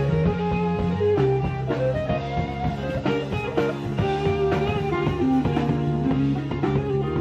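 Rock band playing: electric guitar lines over a drum kit and a low bass line.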